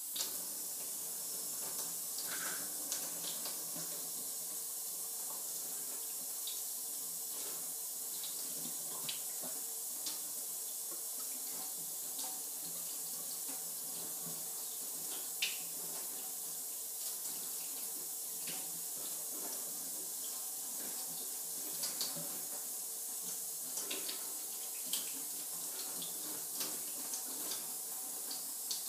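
Bathroom sink tap turned on right at the start and running steadily into a stainless steel basin while hair is rinsed under the stream, with scattered splashes. This is dye being rinsed out of hair.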